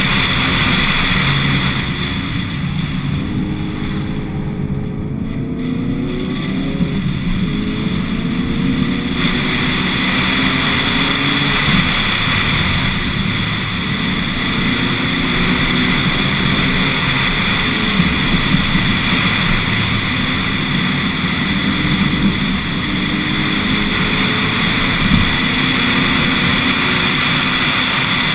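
Lotus Elise S1 111S's four-cylinder Rover K-series VVC engine, running on bioethanol, driving up a mountain road under load over steady wind and road noise. It eases off about two seconds in, then its pitch climbs again as it accelerates.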